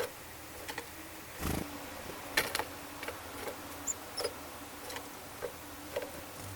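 Small birds pecking and hopping, making irregular light taps and clicks with a duller knock about a second and a half in, and a couple of short high peeps about four seconds in.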